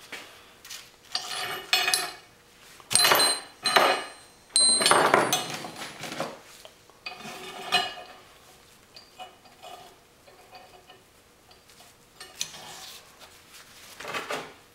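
Steel tools and a steel plate clinking, clattering and scraping on a steel-topped workbench as they are handled, in irregular bursts, with the busiest clatter a few seconds in.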